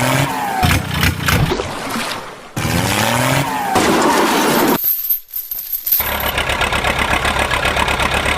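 Vehicle engine sounds that rise and fall in pitch, mixed with sharp knocks. About six seconds in they give way to a fast, even rattle.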